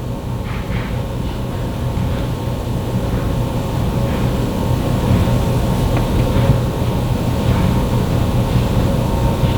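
A steady low droning hum that slowly gets louder, with faint light rustles over it.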